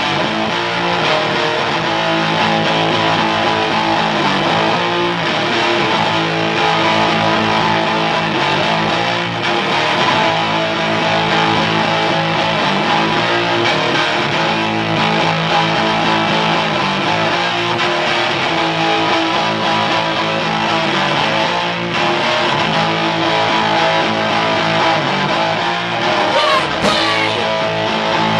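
Live rock band playing loudly and without a break, led by electric guitars, heard through a small camcorder's microphone.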